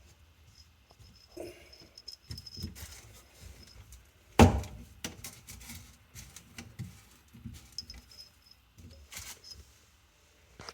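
Scattered knocks, taps and light clatter of plastic sink-drain parts being handled and fitted, with one sharp, much louder knock about four and a half seconds in.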